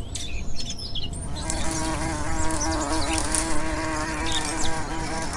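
Buzzing of a flying cockroach's wings, a cartoon sound effect. It starts about a second in and holds steady.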